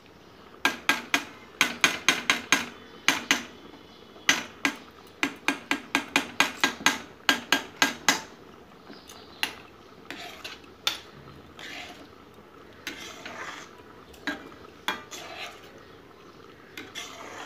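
Metal spoon and slotted spatula stirring thick payesh in a metal pan, clinking against the pan about three times a second for the first half. After that the strokes slow into softer scraping with a few single knocks.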